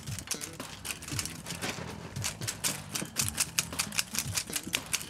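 Rapid, irregular clicking and rattling of a feather cat-teaser toy knocking against the wire bars of a pet cage as a kitten bats and bites at it.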